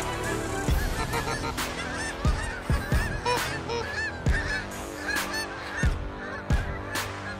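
A flock of Canada geese honking, many overlapping calls, over a backing music track with a steady beat about every two-thirds of a second.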